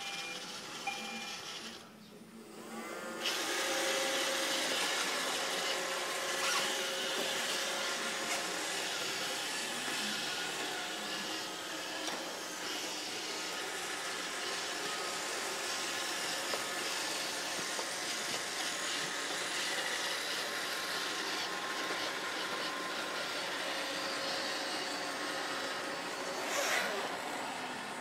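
iRobot Roomba 650 robot vacuum with its cleaning motors starting up about three seconds in, then running steadily: the vacuum fan and brushes make a constant whirring noise with a faint steady hum. A brief louder burst comes near the end.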